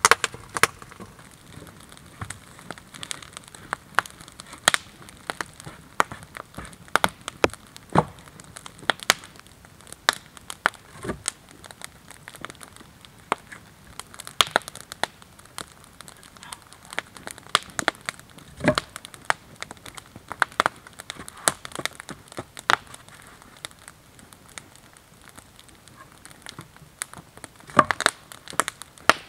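Irregular crunching and knocking as boots move in snow and logs and wooden stakes are handled and set against one another, with a few heavier wooden knocks scattered through.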